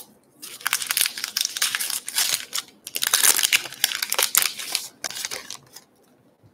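A Topps Gypsy Queen baseball card pack's wrapper being torn open and peeled off the stack of cards, crinkling in two long stretches with a short break a little before three seconds in.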